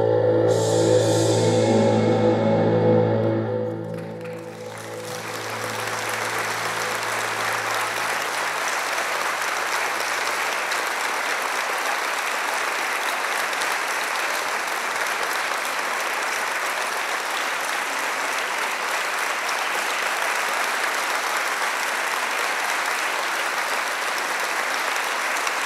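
A held musical chord fades out over the first few seconds, then an audience applauds steadily.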